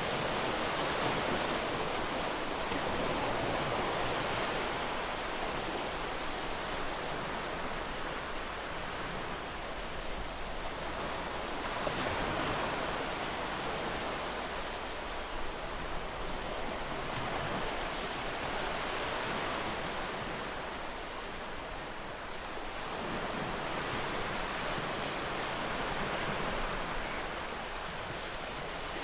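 Ocean surf breaking and washing on a shore, a steady rush that swells and eases every few seconds.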